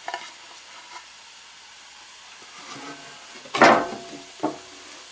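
Knocks from assembling a wooden beehive box: one loud sharp knock with a brief ring about three and a half seconds in, then a smaller one, over a low steady hiss.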